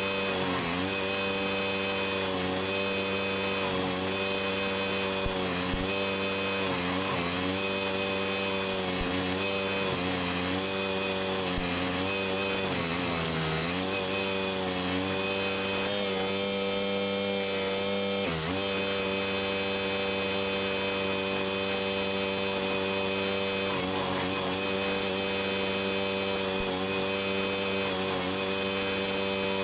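Engine of a Barreto track-driven stump grinder running steadily at high speed, its pitch dipping briefly several times as it takes load.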